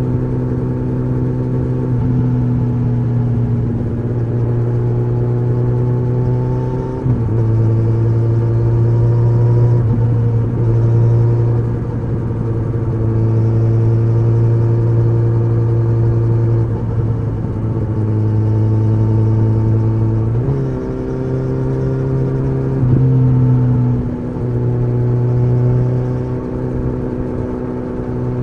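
Kawasaki ZX-14R inline-four running through an Akrapovič exhaust while riding on the road, with a deep, bassy exhaust note. The engine note steps up and down several times as the throttle and revs change.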